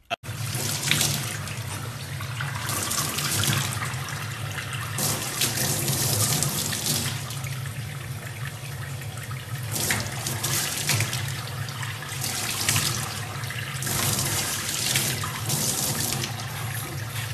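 Water from a faucet running into a stainless steel sink and splashing off a young chimpanzee sitting under the stream. Louder surges of splashing come and go over a steady low hum.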